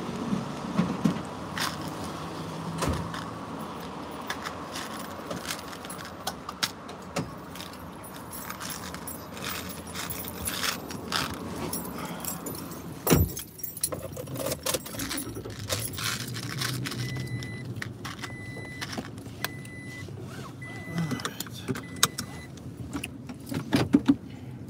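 Inside a car: jangling and clicking handling noises over a steady cabin hum. About thirteen seconds in there is a single thud, and later a car's warning chime beeps in short, even pulses for several seconds.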